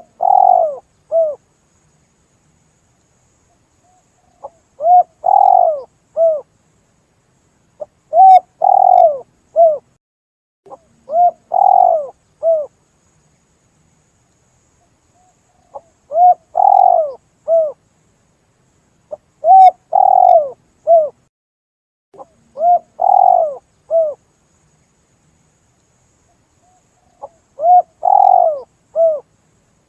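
Spotted dove (tekukur) lure call: about eight cooing phrases, each a short note, a longer rolling middle note and a short closing note, repeated every few seconds with dead-silent gaps between them.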